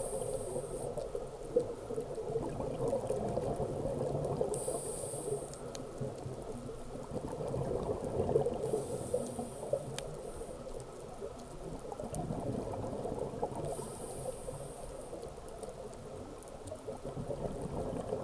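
Scuba diver breathing through a regulator, heard underwater: a short hiss with each inhale about every four to five seconds, and bubbly gurgling of exhaled air between the hisses.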